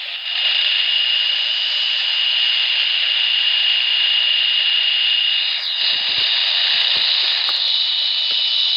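Radio receiver hissing with loud, steady static through its small speaker, a thin high whine running through the hiss. A few faint clicks come near the end.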